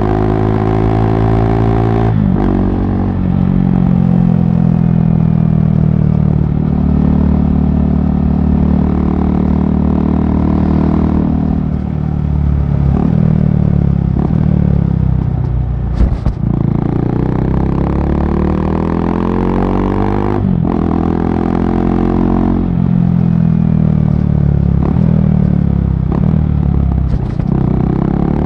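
KTM RC390's single-cylinder engine through a barrel exhaust with the dB killer removed, under way on the road. The engine note climbs in pitch again and again, then drops back as the rider shifts or eases off. There is one sharp crack about halfway through.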